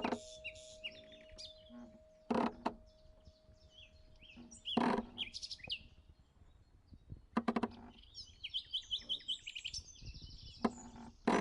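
Small birds chirping and twittering, with several brief louder sounds spread through, and a ringing tone that fades away about six seconds in.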